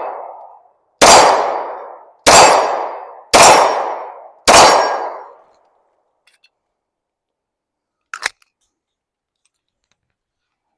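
Four pistol shots from a Springfield Hellcat Pro 9mm, about a second apart, each ringing off for about a second. A short click follows about eight seconds in.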